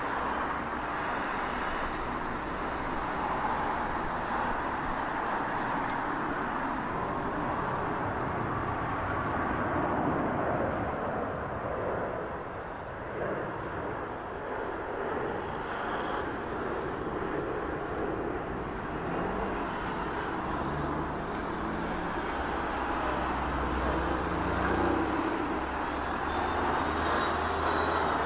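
Jet engine noise from an Airbus A350's twin Rolls-Royce Trent XWB turbofans as the airliner passes overhead in a banking climb: a steady, even rush, with a deeper rumble building in the last ten seconds or so.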